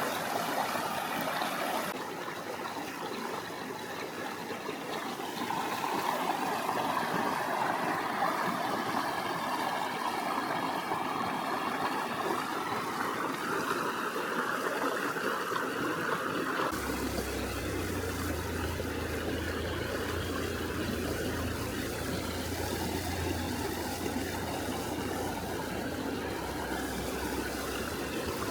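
River water flowing over stones in a steady rush and trickle. The sound shifts a little twice, and a low steady rumble joins it for the last part.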